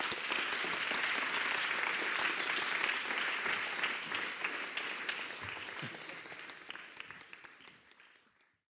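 Audience applauding: many hands clapping together in a dense, even clatter that fades away over the last few seconds until it stops.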